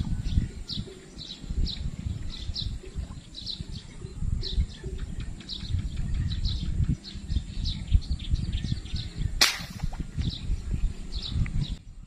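A bird chirping over and over, about three short high chirps a second, over a low rumbling noise. About nine and a half seconds in, a single sharp crack of an air rifle shot.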